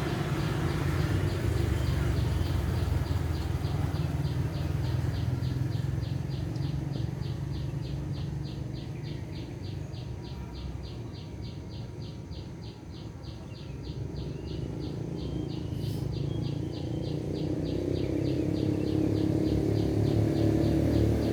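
Low engine rumble of a motor vehicle that fades off around the middle and grows louder again near the end, over a steady, evenly repeating high chirping of about four beats a second.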